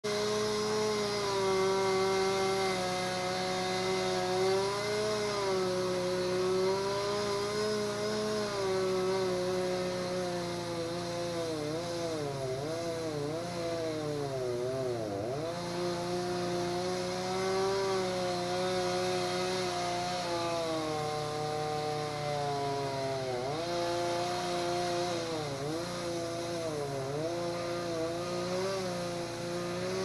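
A small engine running continuously, its pitch wavering and dropping sharply several times before picking back up.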